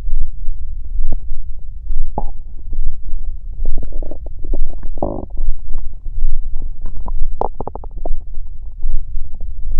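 Human stomach growling, recorded close to the belly: a low rumble with bubbly gurgles, the strongest gurgles about two seconds in, around the middle, and a quick bubbling run near the end. Under it is a low pulse about once a second.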